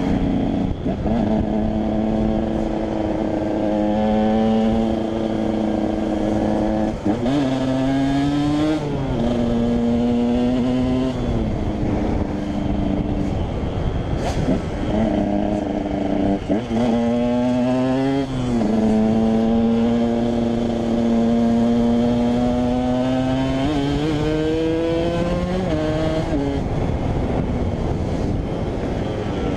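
KTM 125 EXC's two-stroke single-cylinder engine being ridden: the engine pitch climbs under throttle and falls sharply again and again as the rider shifts and backs off, with a few quick blips between.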